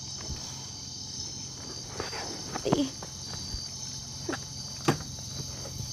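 Night insects, crickets, chirring steadily at a high pitch, with a few scattered clicks and knocks, the sharpest about five seconds in.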